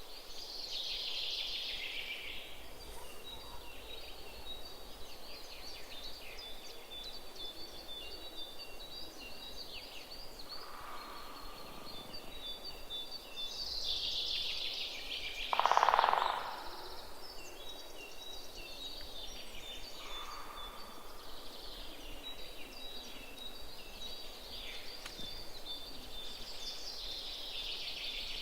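Many small songbirds chirping and singing in woodland, short high notes overlapping continuously. A few lower calls come in, with the loudest of them a little past the halfway point.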